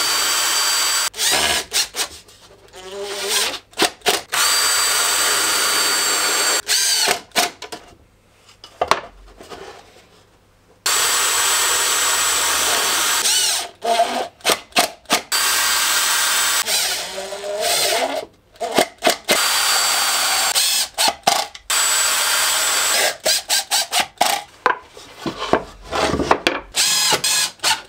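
Cordless drill and cordless impact driver drilling and driving screws into plywood panels. The motor whine comes in runs of one to three seconds with short pauses, then breaks into many short bursts near the end.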